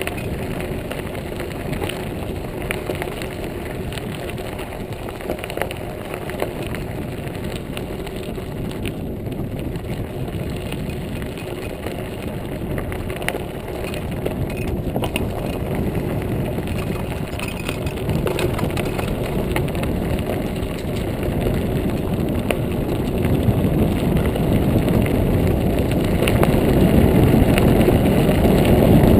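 Montague Paratrooper Pro folding mountain bike rolling along a gravel trail. There is a steady rumble and crunch from the tyres on the gravel, with small clicks and rattles from the bike. It grows louder in the last several seconds.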